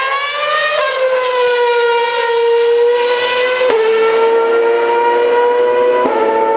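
A Formula One car's engine screaming at high revs as it passes close and pulls away. Its whine peaks and dips about a second in, then holds a high steady pitch, broken by two quick upshifts near the middle and near the end.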